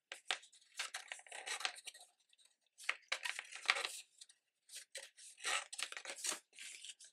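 Black cardstock being folded and creased by hand along its score lines: a scatter of short, faint papery crackles and rustles with brief pauses between them.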